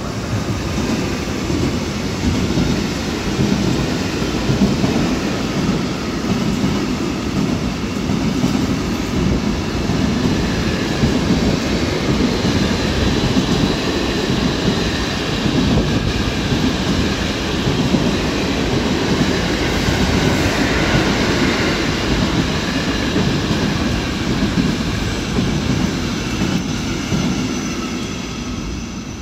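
Intermodal container freight train behind an electric locomotive passing through a station: a steady loud rumble of wagon wheels on the rails with faint high ringing tones. It dies away over the last few seconds as the final wagons go by.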